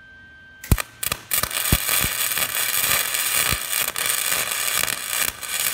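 Wire-feed welder arc crackling while building up weld onto a broken exhaust manifold stud: a couple of short starts about a second in, then a steady, loud crackle and hiss for about four seconds that cuts off at the end.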